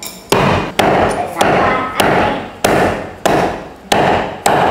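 Heavy kitchen knife chopping through a boiled chicken, bones included, with eight sharp, evenly paced chops about every 0.6 s.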